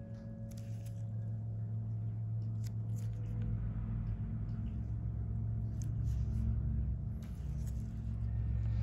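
A steady low hum, with a few faint short clicks scattered through it.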